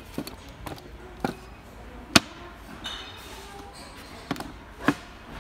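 Half a dozen sharp wooden knocks and clacks from an MDF jewellery box being handled as its drawer and lid are shut. The loudest knock comes about two seconds in.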